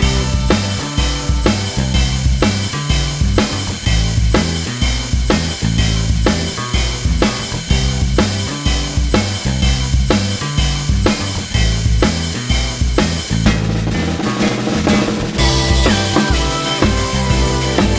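Background music: a drum kit and bass playing a steady beat. The cymbals drop away about two-thirds of the way through, then the music returns brighter with held notes.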